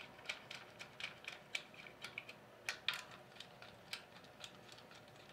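Faint, irregular small metallic clicks and taps as terminal nuts are spun finger-tight onto the terminal studs and copper jumper bar of a Carrier 06E compressor's terminal plate, with a few sharper clicks about three and four seconds in.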